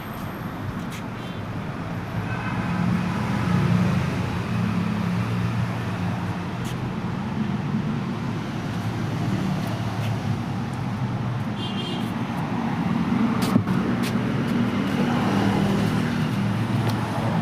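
Steady running noise of a motor vehicle, with a few faint clicks.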